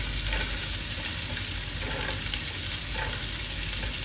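Garlic and carrots frying in hot oil in a large pot, sizzling steadily, as handfuls of chopped green beans are dropped in.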